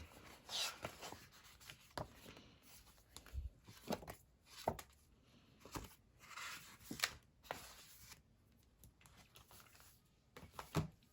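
Paper stickers being handled, peeled from a sticker sheet and pressed onto a planner page: two brief papery swishes, one about half a second in and one around six seconds in, among scattered light taps and clicks.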